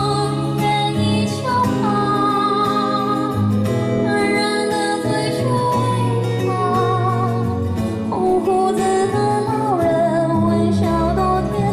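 A woman singing a Mandarin song into a handheld microphone over instrumental backing music.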